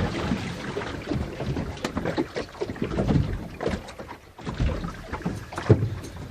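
Irregular knocks and rustling from things being handled on a kayak, with some wind noise.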